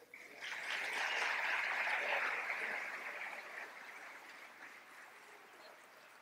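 Congregation applauding, swelling about half a second in and then slowly dying away.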